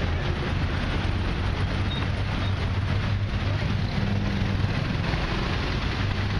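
Road traffic: a steady low engine hum of vehicles nearby, over a continuous rushing noise.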